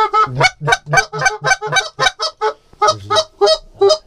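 Canada goose call blown by a hunter in a rapid run of short honks and clucks, about four to five a second, with a brief pause about two and a half seconds in. This is calling to draw geese in to the decoys.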